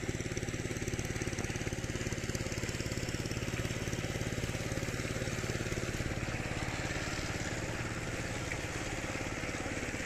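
An engine running steadily at an even speed, with a fast regular beat.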